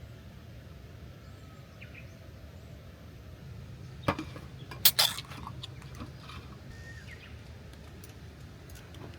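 A few sharp clicks and knocks about four to five seconds in, from small objects being handled, over a steady low outdoor background.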